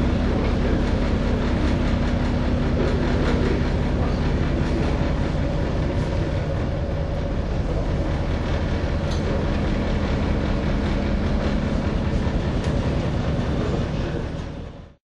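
Steady rumbling drone of a ship's engines heard from on board, with a rush of storm wind and sea noise over it; it fades out near the end.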